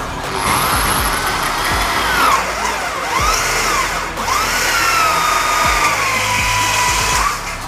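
Cordless drill driving a 22 mm hole saw through a thin light-steel hollow tube. The cutter squeals, its pitch wavering up and down in arcs as it bites the metal.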